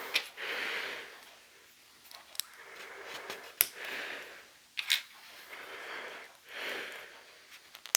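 Close-up breathing through the nose, several soft breaths in and out, with a few sharp clicks of plastic LEGO pieces being handled.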